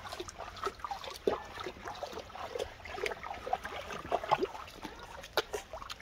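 Shallow stream trickling over stones, with irregular small splashes as a domestic goose wades through the water.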